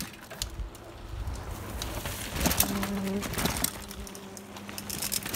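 Mountain bikes riding past over bare rock, with scattered clicks and knocks from tyres and bikes that are busiest about halfway through. A short low hum-like tone sounds about halfway through.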